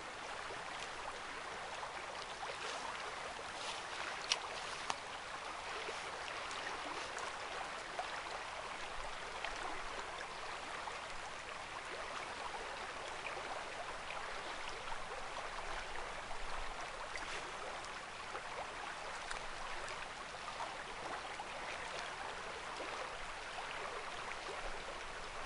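Steady rush of river water running over a riffle, with a few light clicks in the first few seconds.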